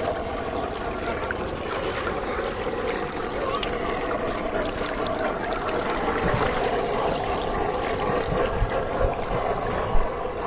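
Many fish thrashing and splashing in shallow muddy water: a steady wash of small splashes and churning. A few low thumps come near the end.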